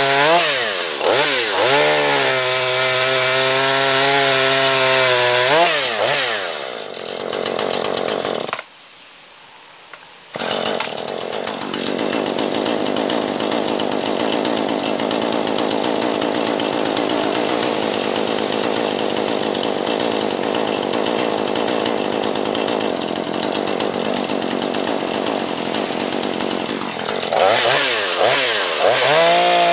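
Jonsered CS 2240 two-stroke chainsaw running at high revs with a few quick throttle blips. It then cuts through wood under load for most of the stretch, with a sudden break of about two seconds early in the cutting. Near the end it goes back to free revving with throttle blips.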